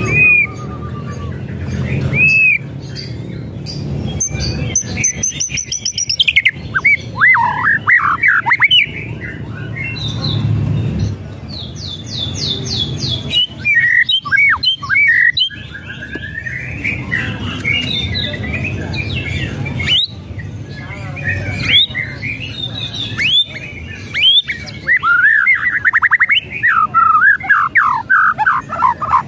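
White-rumped shama singing: a varied run of loud whistles and slurred notes, broken by quick repeated notes and harsh rattling chatter calls, with a fast string of notes near the end.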